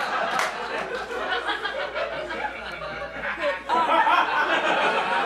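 Audience laughing, the laughter growing louder about two-thirds of the way through.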